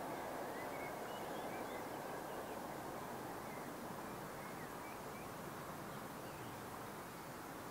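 Outdoor ambience: faint small birds chirping over a steady low rumble that slowly fades away.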